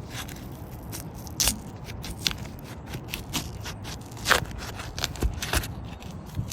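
An asphalt shingle's sealant bond cracking and scraping as the shingle is pried loose, in a string of irregular sharp cracks with the loudest a little past four seconds in. The shingle is bonded down very hard and is not pliable enough to unseal cleanly.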